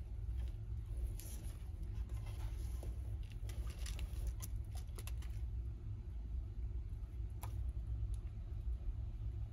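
Yellow-headed water monitor eating quail eggs: scattered soft crackles and clicks of shell and chewing for the first five seconds or so, then one sharper click near the end, over a steady low hum.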